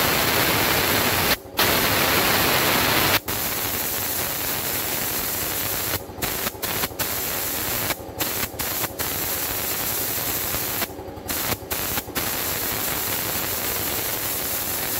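Kaeyong KZ112 chemical spray gun hissing steadily as compressed air atomizes the liquid into a fine mist. The hiss cuts off abruptly and briefly several times, and it is quieter after about three seconds.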